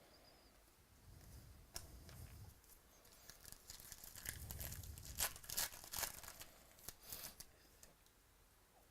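Foil trading card pack being torn open and its wrapper crinkled, a run of crackly tearing and rustling that is densest and loudest about two thirds of the way in.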